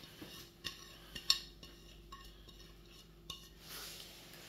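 A plastic plate lightly tapping and scraping against the rim of a plastic bowl as spices are tipped off it onto raw chicken: about five faint clicks spread over a few seconds, the sharpest a little over a second in.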